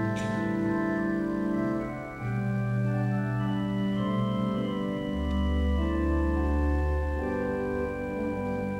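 Pipe organ playing slow, sustained chords that change every second or two, with a deep held pedal note in the bass about five seconds in.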